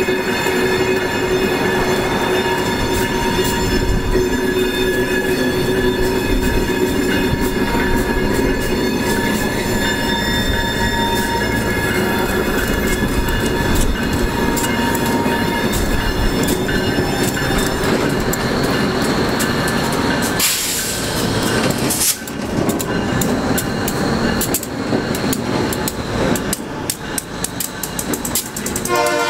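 Diesel switcher locomotive running at low speed as it tows retired Budd R32 subway cars along street track, with steady squealing from the steel wheels on the curve. In the second half the squeal fades and quick clicks and clanks of the wheels passing over rail joints take over as the cars roll by.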